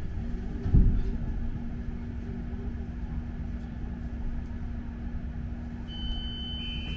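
Steady low rumble of a London double-decker bus heard from inside while it drives, with a steady hum running under it and a loud thump about a second in. Near the end a high steady tone comes in.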